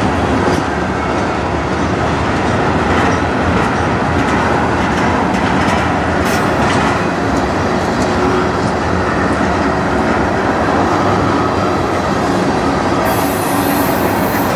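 Freight train tank cars and a covered hopper rolling past close by: a steady, loud rumble of steel wheels on rail, with scattered clicks as the wheels cross the rail joints.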